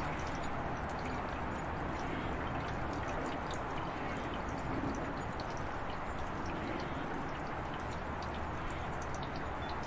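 Outdoor ambience after rain: water running and trickling steadily, with many small scattered drips.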